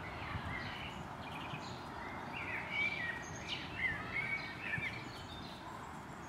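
A bird singing a run of quick chirps and warbled phrases from about two and a half seconds in until about five seconds in, over a steady outdoor background noise.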